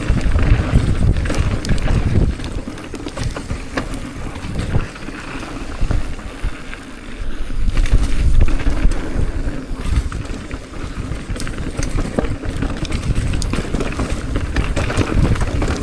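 Downhill mountain bike riding over a rough trail: wind buffeting the microphone and tyre rumble that swells and dips, with frequent rattling clicks and knocks from the bike.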